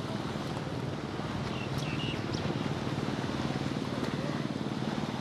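Motorboat engine running steadily, a low even hum with a fast throb.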